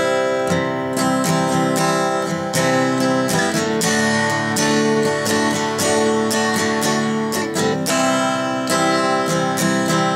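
Background music: strummed guitar chords in a steady rhythm.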